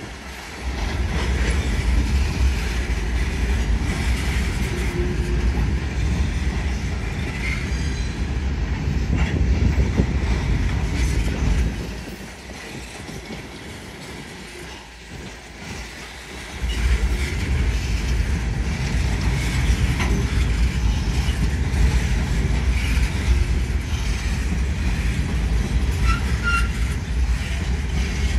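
Empty coal hopper cars of a unit train rolling past on steel rails: a steady rumble and rattle of wheels, with a few faint brief squeals. The rumble drops away for about four seconds near the middle, then returns.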